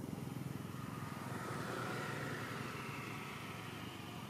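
A motor vehicle's engine running, a dense low pulsing rumble with a faint whine that rises in pitch about halfway through.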